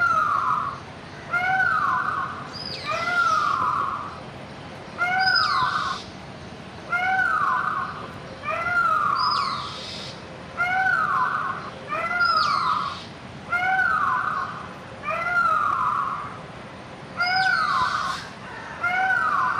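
A bird calling over and over at a steady pace, about one call every second and a half, each a short note that rises and then falls in pitch.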